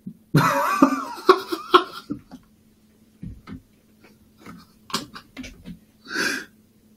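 A person laughing in a loud burst during the first two seconds, followed by scattered short breaths and small clicks, with a short breathy laugh or exhale near the end. A faint steady electrical hum runs underneath.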